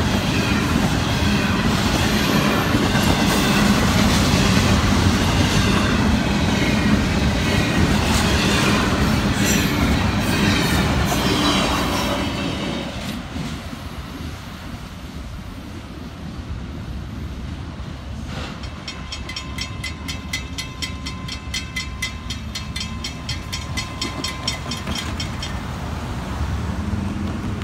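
Florida East Coast double-stack intermodal freight train rolling past, its wheels running on the rail. About halfway the sound drops to a quieter scene, where a grade-crossing bell rings in a fast, even rhythm for several seconds and then stops near the end.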